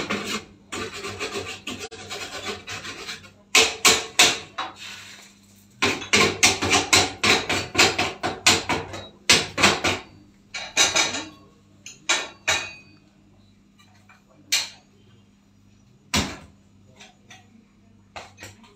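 Metal tool scraping and knocking on the stripped-down top of a gas cooker. Rough scraping comes first, then quick runs of sharp knocks, several a second, thinning out to a few scattered clicks near the end.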